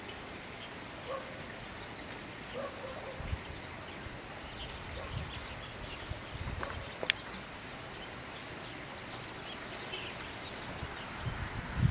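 Faint outdoor ambience: distant birds chirping in short, high notes over a steady hiss, with a few low rumbles and a sharp click about seven seconds in. The low rumbling grows louder near the end.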